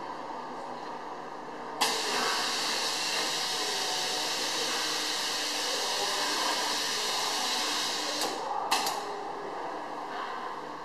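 Compressed air hissing from the pneumatic lift of a high-shear homogenizer mixer as the mixing head is lowered into the bowl. The loud hiss starts suddenly about two seconds in, holds steady for about six seconds and cuts off, and a short second puff of air follows.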